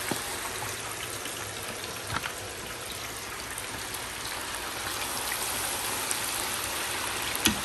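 Pork chops frying in grease heated to 350°F: a steady sizzle with a few scattered pops.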